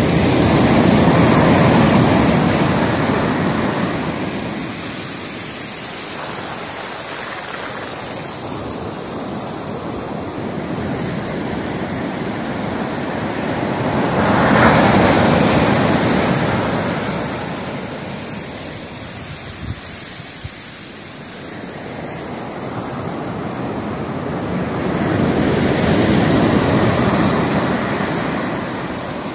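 Rough surf breaking on a sandy beach: loud, rushing waves crash and wash up the sand three times, roughly every twelve seconds, with a steady hiss of water between them.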